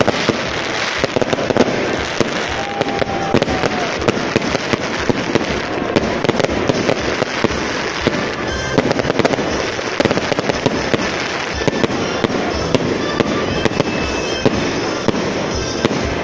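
Aerial fireworks bursting in quick succession: a dense, continuous crackle packed with sharp bangs, and a few short whistles.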